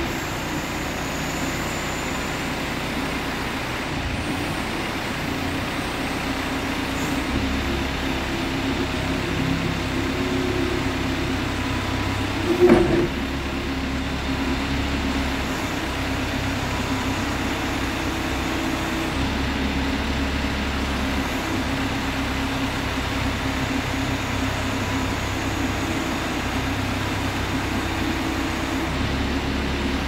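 A Case 580L Series 2 backhoe loader's diesel engine running steadily while the hydraulics work the backhoe boom. The engine note swells and eases several times as the boom moves, with one short loud clunk about halfway through.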